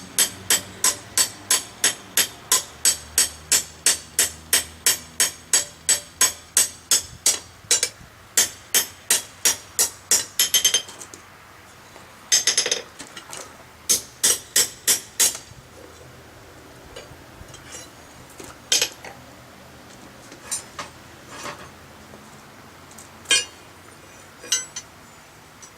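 Blacksmith's hand hammer striking steel on an anvil with a bright ring. There are about three blows a second for some ten seconds, then a few short runs of blows and scattered single strikes.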